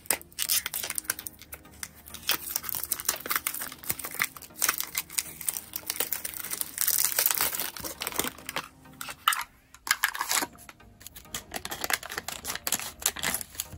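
Plastic packaging of a Roblox blind-box toy crinkling and tearing as it is opened by hand, in dense, irregular crackles with a short lull about ten seconds in. Near the end, scissors cut into a white plastic inner bag.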